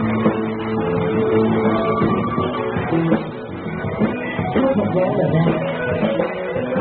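Live rock band playing, acoustic and electric guitars strumming held chords over a full band. The level dips briefly about three seconds in.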